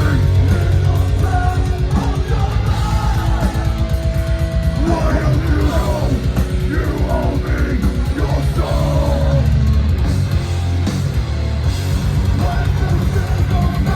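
Live hardcore/metal band playing loud: heavy distorted guitars and bass over pounding drums, with a yelled vocal.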